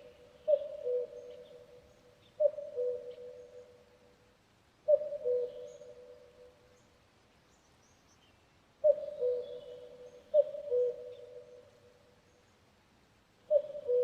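Common cuckoo calling its falling two-note 'cuck-oo', six times, with a pause of about four seconds midway. Faint chirps of small birds in the background.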